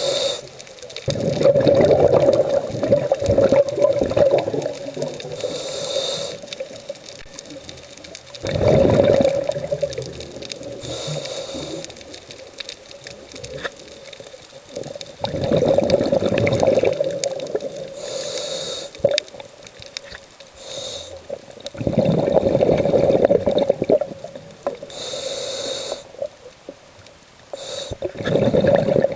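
A scuba diver breathing through a regulator underwater, recorded close by. About every six to seven seconds comes a loud bubbly rumble of exhaled air, and between the rumbles a shorter, higher hiss of the inhale through the demand valve.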